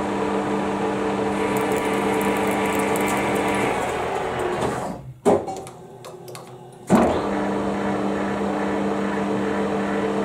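Centre lathe's motor and spindle drive running with a steady hum while taking a light full-form shaving pass on an internal thread in aluminium. It runs down and stops with a click about five seconds in, then starts up again about seven seconds in, reversing to back the threading tool out with the half nuts left engaged.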